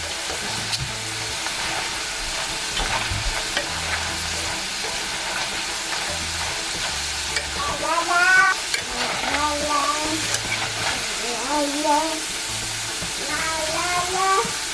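Potato fries frying in hot oil with a steady sizzle, and a few clinks of a utensil stirring them. Through the second half, several short wavering high calls rise and fall over the sizzle.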